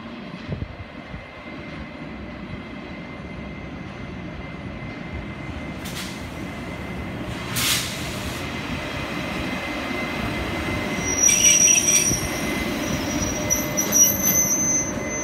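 Taiwan Railway E200-class electric locomotive hauling a Chu-Kuang express past the platform, its rumble growing louder as it comes close. From about eleven seconds in, high wheel and brake squeal comes in as the train slows.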